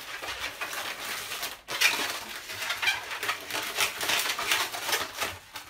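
Inflated latex twisting balloons rubbing and squeaking against each other and the hands as they are twisted into segments and locked together, in an irregular run of squeaks.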